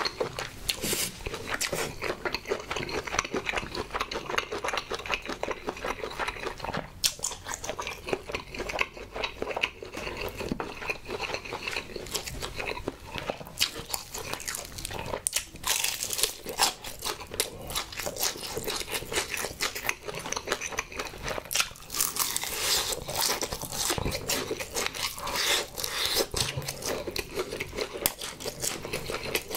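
Close-miked chewing, then crunching bites into a crispy fried honey chicken drumstick, a dense run of small crackles that is busiest in the latter part.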